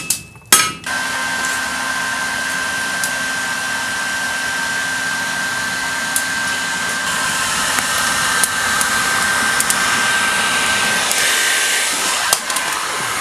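A last metal hammer strike, then a hairdryer switched on and blowing air into a makeshift forge: a steady rush of air with a steady high whine.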